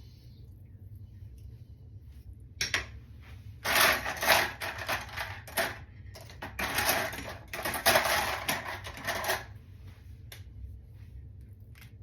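Scratchy, crackling rustle of hair being wound onto a Velcro roller, starting about three seconds in and lasting some six seconds, with a couple of single clicks after it.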